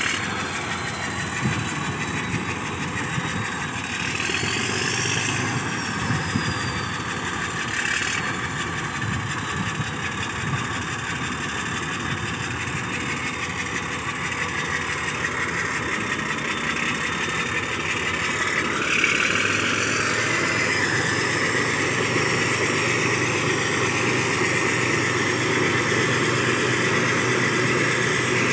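Caterpillar 12 motor grader's diesel engine running steadily as the grader drives along a dirt track. It gets louder about two-thirds of the way through as the machine comes close.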